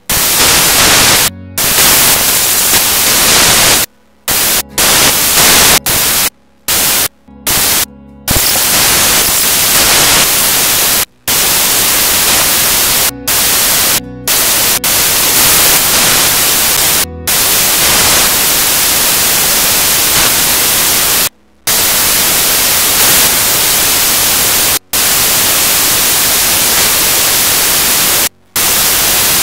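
Loud, steady static hiss spread evenly from low to very high pitch, with no tones in it. It cuts out to near silence for a fraction of a second about a dozen times, at irregular moments.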